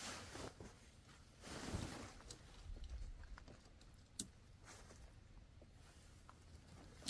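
Tent fabric rustling as it is pulled up over the pole frame, with a swell of rustling between about one and a half and two and a half seconds in. Light scattered clicks of handling, and one sharp click a little after four seconds.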